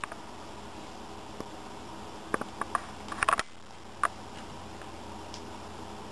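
Steady faint background hum with a few light clicks and taps, most of them bunched between about two and three and a half seconds in.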